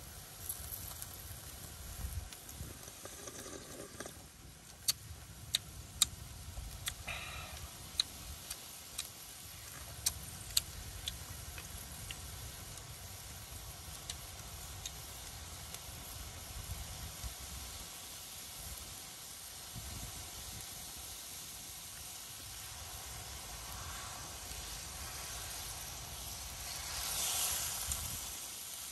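Spicy fish soup boiling in a large aluminium wok over a fire, a steady hiss and bubble with a low rumble under it. Sharp clicks come between about five and eleven seconds in, and near the end a louder hissing swell as a whole fish goes into the broth.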